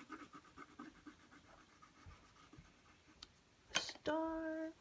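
Drawing implement scratching on paper as designs are drawn onto a paper craft. Near the end comes a sharp noise, then a steady high tone lasting about half a second, the loudest sound here.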